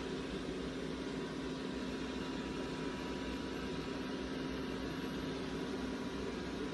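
Dreame robot vacuum cleaner running: a steady hum of its suction fan and brush motors.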